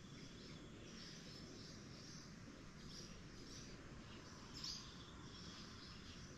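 Faint bird chirps: short high calls repeating every half second or so. A brief louder click comes about two-thirds of the way in.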